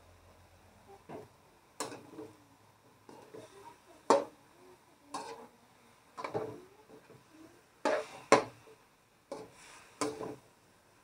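A kitchen utensil knocking against cookware: about ten sharp, irregular clacks with short ringing, roughly one a second, the loudest around four and eight seconds in.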